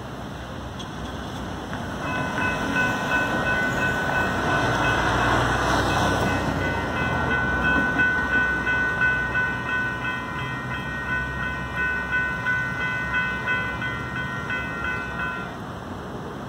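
Railroad crossing warning bells ringing in a quick, steady repeating pattern as the crossing activates and the gates lower. They start about two seconds in and fall silent about a second before the end, once the gates are down.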